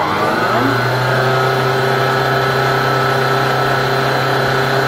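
Stand mixer with a balloon whisk switching on and spinning up to high speed, its motor whine rising over the first half second, then running steadily while it beats egg whites into a stiff meringue.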